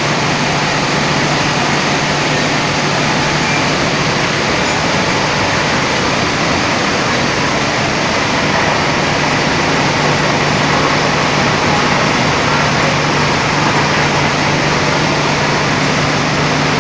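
Vertical sump pump running steadily under its electric motor: a constant low hum beneath an even rushing noise.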